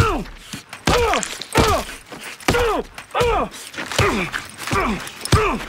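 A man being beaten with repeated punches, about eight heavy blows at a steady pace. Each lands with a dull thud and a short, hoarse grunt that drops sharply in pitch.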